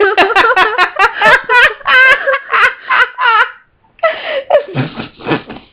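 A person's voice making wavering, moaning whale-call noises in quick pulses that bend up and down in pitch, then breathier laughing sounds near the end.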